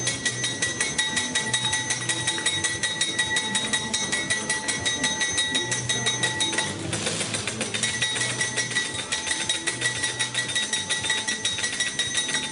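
Rapid, even chopping of hard candy rods with a metal blade against a steel tray, about eight to ten cuts a second, over steady humming tones and a low note that comes and goes.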